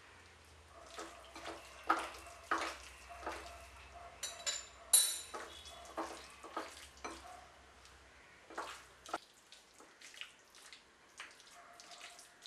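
Hands squeezing and turning chicken pieces in a thick yogurt and spice marinade in a ceramic bowl: irregular wet squelches and soft slaps, with two sharp clinks against the bowl about four to five seconds in.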